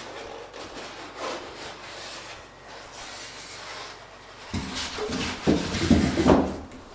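Packaging being handled during an unboxing: scraping and rubbing, then louder bumps and knocks about four and a half seconds in.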